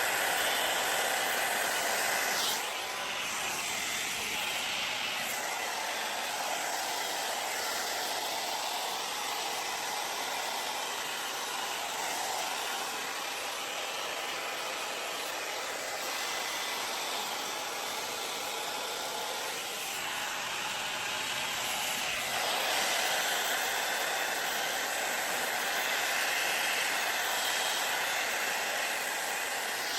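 Wavytalk Air Sculpt hot air brush blowing with a steady airy hiss. Its level drops a little a couple of seconds in and rises again about two-thirds of the way through.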